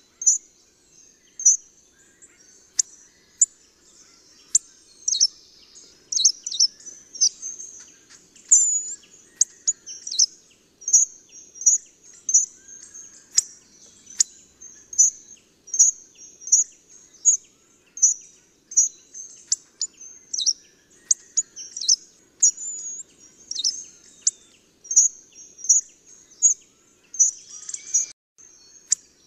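Hawfinch giving short, sharp, high 'tzik' calls, about one or two a second, some in quick clusters.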